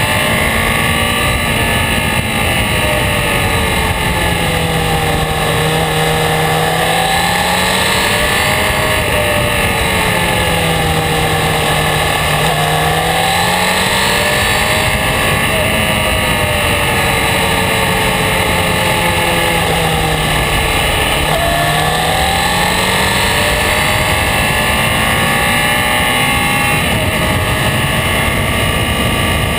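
Honda CB600F Hornet's inline-four engine running under way, its pitch falling and rising several times as the rider eases off and opens the throttle through bends. Steady wind and road rush run underneath.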